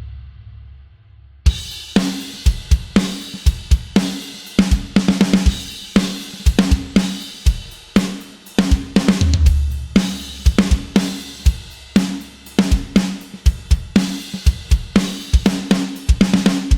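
Sampled acoustic drum kit from the EZdrummer 3 Death Metal EZX library. A previous hit rings out and fades, then a groove of kick, snare, hi-hat and cymbal hits starts about a second and a half in and keeps a steady beat.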